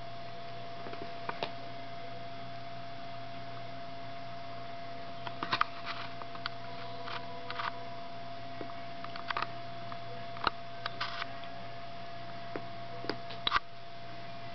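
Steady low hum with a thin constant high tone, typical of camera or room noise, broken by scattered brief clicks and taps.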